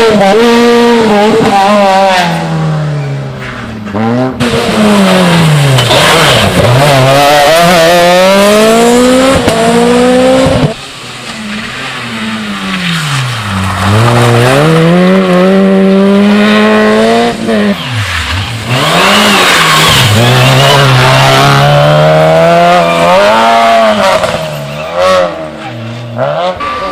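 Rally car engines revved hard, pitch climbing under acceleration and dropping on lift-off and downshifts, over and over. About ten and a half seconds in the sound drops suddenly before the next car comes on strongly.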